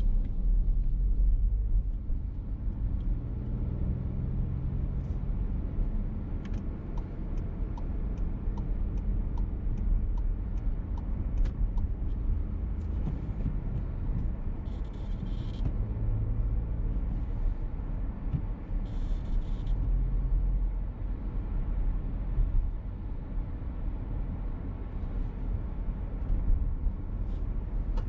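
VW T-Roc petrol car driving, heard from inside the cabin: steady low engine and road rumble that swells a few times as the car accelerates. A run of faint, regular ticks comes in for several seconds in the middle.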